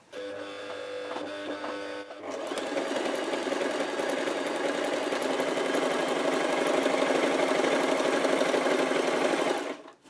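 Brother JS-23 household sewing machine stitching through fabric. It runs quietly for about two seconds, gets louder, then stops just before the end. It runs evenly without knocking or clicking, the sound of the machine once its jamming shuttle hook has been freed.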